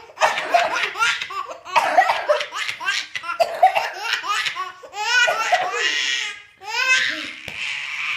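A baby laughing hard: belly laughs in several runs of quick rising-and-falling bursts, with short breaks between them.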